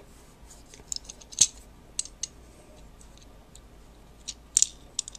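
Small plastic clicks and taps from a Scout Class Scattorshot Transformers action figure as its parts are handled and moved into place. The clicks are scattered and irregular, the sharpest a little after a second in, with another cluster around four and a half seconds.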